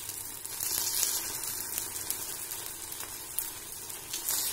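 Stuffed sago-and-potato appe frying in ghee in a non-stick appe pan: a steady, soft sizzle, with a few faint clicks as the balls are turned over.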